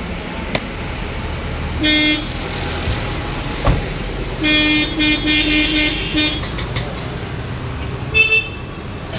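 Street traffic with vehicle horns honking over a steady traffic rumble. There is a short honk about two seconds in, a run of quick repeated beeps from about four and a half to six seconds, and another short honk near the end. A single sharp knock comes a little before the middle.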